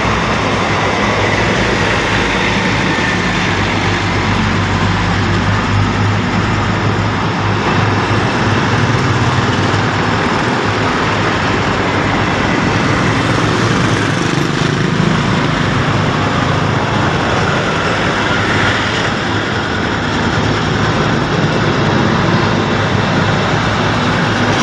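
Steady road traffic noise: vehicle engines running in slow, congested traffic, loud and unbroken.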